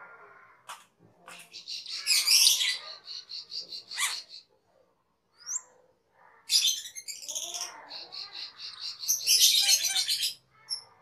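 Asian glossy starling (cucak keling) singing in two long bouts of whistles, chatter and fast runs of repeated notes. The first bout comes about a second in and the second just past the middle, with short single notes between them.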